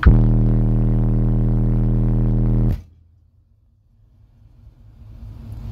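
Car-audio subwoofer burp: a steady 40 Hz test tone played flat out through four subwoofers on four Taramps Smart 8K amplifiers, measuring 162.33 dB on the SPL meter. It holds for under three seconds and cuts off suddenly, then the sound drops almost to silence before a low rumble slowly comes back.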